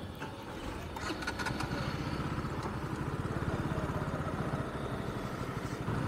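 Motorcycle engine running as the bike pulls away, its steady low firing getting louder over the first few seconds, with a brief clatter about a second in.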